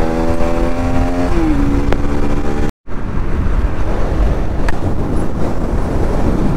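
Bajaj Pulsar NS200 single-cylinder engine running at speed, its note climbing slowly and then dropping a step about a second and a half in. After a brief dropout near the middle, heavy wind rush and road noise bury the engine.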